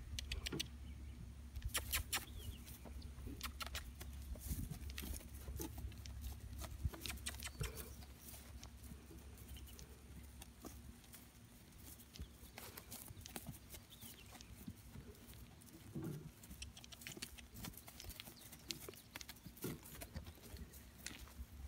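Horse moving under a rider over grass pasture: scattered soft hoof thuds and clicks, with a low rumble during the first several seconds.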